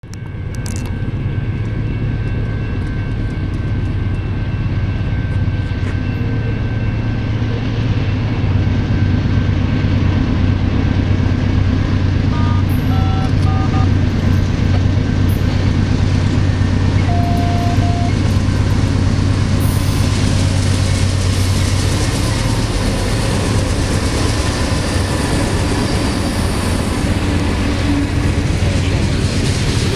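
BNSF diesel freight locomotives running with a steady low drone as they approach and pass. Then the rolling noise of the train's freight cars on the rails, louder and noisier as the boxcars go by close.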